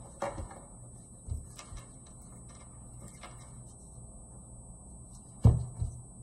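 A few light knocks over a faint low hum, then a louder thump followed by a smaller one about five and a half seconds in.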